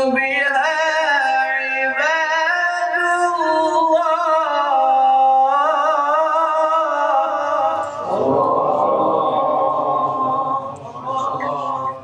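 A male qari reciting the Quran in the melodic chanted style of tajweed, drawing out long, wavering, ornamented notes into a microphone.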